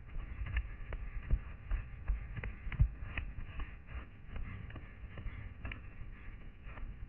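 A runner's footsteps on a pine-forest floor, with irregular thuds of feet striking the ground and crackling clicks of dry twigs and brush underfoot. The heaviest thud comes about three seconds in.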